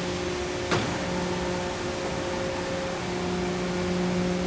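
Injection molding machine and its servo-driven pick-and-place robot arm running a dry cycle: a steady machine hum with a few held tones over a noisy background, and one sharp clack just under a second in.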